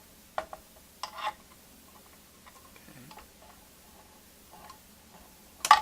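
Light metal clicks and taps from a screwdriver and a phonograph turntable platter against the record changer's mechanism as the platter is worked down onto the spindle, with a few faint taps in the middle and a sharper, louder knock near the end.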